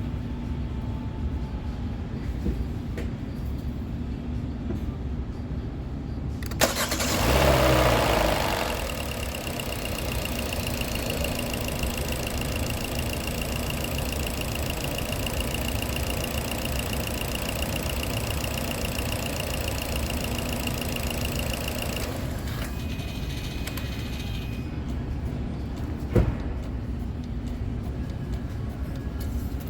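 Hyundai Elantra engine cranking and firing up about seven seconds in with a brief flare of revs, then idling steadily with a high whine, run just after an oil change to circulate the fresh oil. It shuts off after about fifteen seconds, and a single sharp knock follows a few seconds later.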